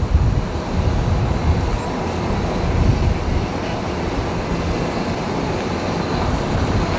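Fishing boat's engine running in a steady low rumble as it motors into its slip, with wind buffeting the microphone, gustier in the first few seconds.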